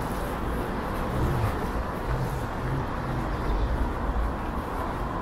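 City street traffic: a steady low rumble of buses and cars on a wet road.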